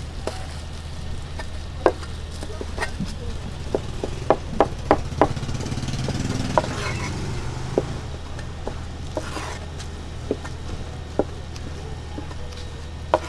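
Cleaver chopping cooked pork offal on a plastic cutting board: irregular sharp knocks, with a quick run of four at about three a second near the middle, over a steady low hum.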